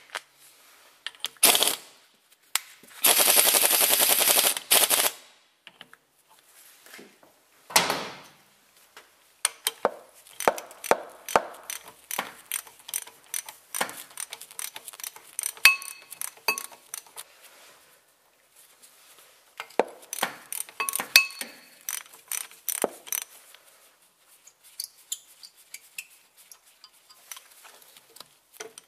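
Tools at work on the bolt of a Peugeot 206 rear axle's anti-roll bar side plate as it is undone. A loud, fast rattle lasts about two seconds near the start, then come long runs of short metallic clicks and taps.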